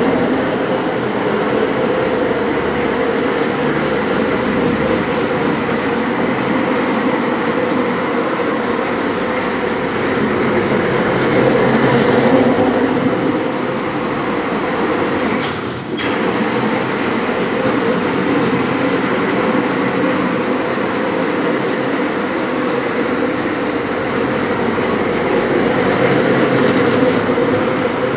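Electric bumper cars running on a concrete floor: a steady rolling rumble with motor hum, with a brief dip about sixteen seconds in.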